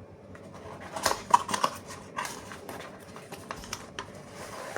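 Cardboard box being opened and the packed contents handled: irregular clicks, scrapes and rustles, busiest between about one and two seconds in.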